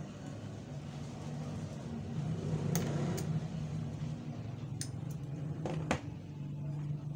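A few sharp clicks and taps of pliers handled against an opened satellite receiver's metal chassis, over a steady low hum.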